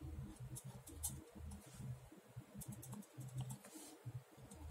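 Ballpoint pen making short, quick strokes on paper, with scattered small ticks and clicks.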